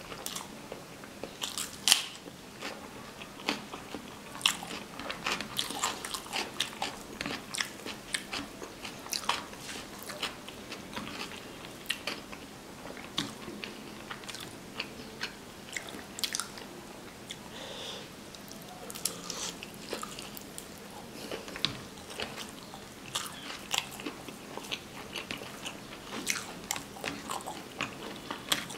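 Close-miked mouth sounds of a person eating rice with chicken and egg curry: steady wet chewing with many short smacks and clicks.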